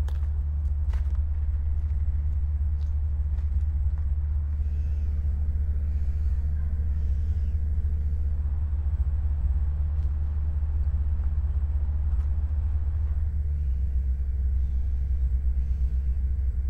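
A steady, deep low rumble that runs on without a break, with nothing sudden over it.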